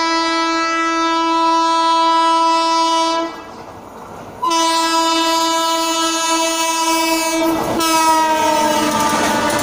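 Indian Railways WAP-7 electric locomotive sounding its horn in two long blasts as it runs through without stopping. The second blast drops in pitch as the locomotive passes close by about eight seconds in, and a rush of wheels on the rails follows.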